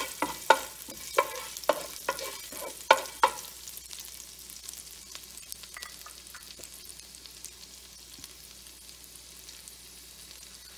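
Wooden spatula knocking and scraping on a nonstick frying pan, several strikes, as ginger, green chilli and whole spices are stirred in hot ghee and sesame oil. After about three seconds the stirring stops and the oil keeps sizzling more quietly, with small pops.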